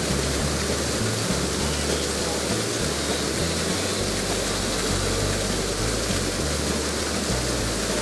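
Steady rushing roar of a wide waterfall pouring over a rock ledge, with the low bass notes of background music underneath. The rush cuts off sharply at the end.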